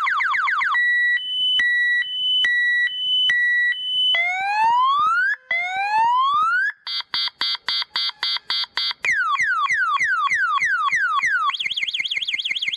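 Multi-tone car alarm siren with its pitch altered by a 460K resistor wired in parallel with the 68K resistor on pin 1 of its chip. It cycles through its sounds: repeated falling sweeps, a two-tone hi-lo, slow rising whoops, a rapid chopped chirp, falling sweeps again, and a fast warble near the end.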